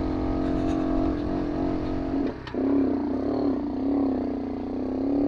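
Romet Ogar 202 moped engine running under throttle while riding off-road. The note holds steady, dips briefly about halfway through, then wavers up and down in pitch before settling again.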